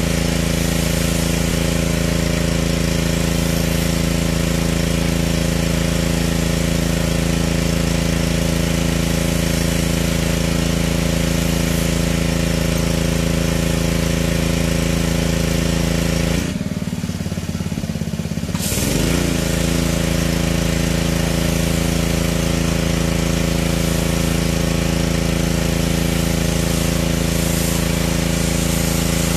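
Pressure washer running steadily with the hiss of its spray. About two-thirds of the way in, the spray and the motor drop away for about two seconds, then the motor winds back up and spraying resumes.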